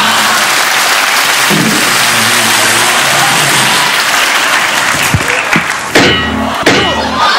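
Studio audience applauding, a dense steady clatter of clapping. Near the end a large aluminium saucepan is struck against a man's head, several sharp knocks in quick succession, with shouting.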